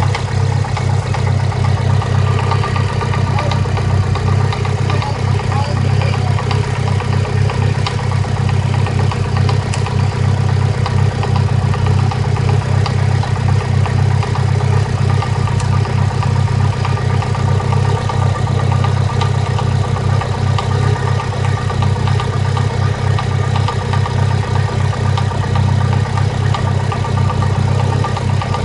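Mitsubishi Lancer Evolution IX's turbocharged 2.0-litre four-cylinder (4G63) idling roughly, a steady run with an uneven pulse. The owner reads it as a misfire in cylinder 2 and later traced the rough idle to an aftermarket HKS exhaust camshaft.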